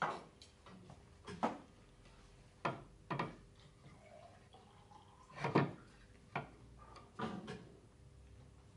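Irregular light knocks and clacks of small hardwood shelf parts being handled, glued and fitted together on a workbench. There are about seven separate taps, the loudest about halfway through.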